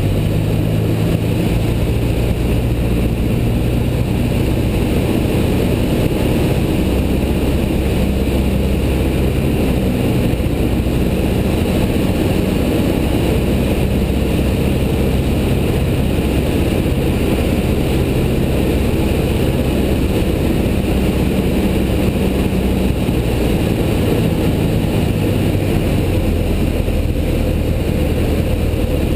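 Single-engine light aircraft's piston engine and propeller droning steadily in flight, heard inside the cockpit with airflow hiss. The low hum shifts pitch slightly a few times.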